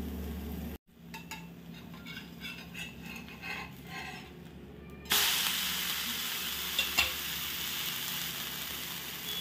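A ghavan rice-and-lentil pancake frying on a tava: quiet at first, then about five seconds in it is flipped with a steel spatula and a loud, steady sizzle sets in as the second side meets the hot pan. A light spatula click follows about two seconds later.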